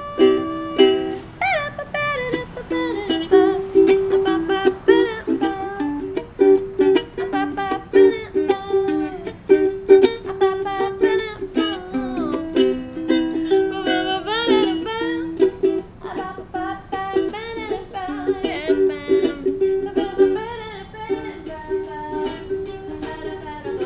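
Ukulele strummed in a steady rhythm, with percussive hits and a wavering melody line over it, in an instrumental break with no lyrics.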